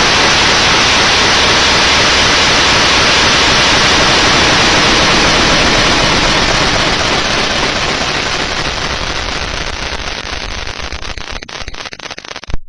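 Loud, even TV-style static hiss that fades gradually over its second half, with a short louder crackle just before it cuts off abruptly.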